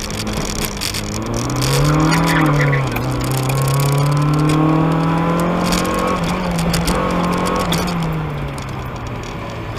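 A 1992 Mazda Miata's stock 1.6-litre four-cylinder with headers and a catback exhaust, pulling hard, heard from inside the car. Revs climb about a second and a half in, drop back near three seconds, hold steady, then fall away near eight seconds.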